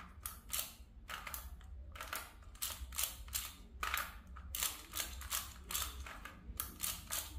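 Clicks and clacks of a Sengso Square-series twisty puzzle's matte plastic layers being turned by hand, several turns a second in uneven runs.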